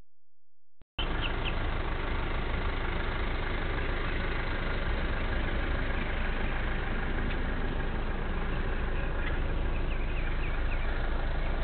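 Steady rumble of a car engine running, starting suddenly about a second in, with a few short bird chirps near the start and again about nine seconds in.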